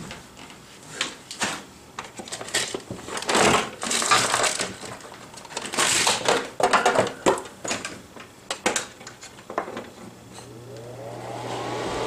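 Small metal tools clicking, clinking and scraping on a workbench. Near the end a small motor or blower starts up, its whine rising in pitch over a steady hum.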